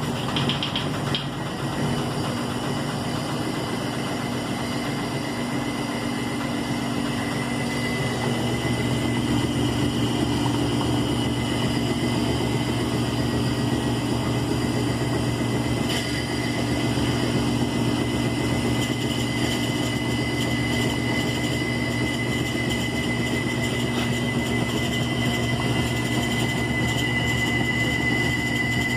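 Electrolux LE05 washing machine running: a steady motor hum with a thin high whine, the hum growing fuller about eight seconds in.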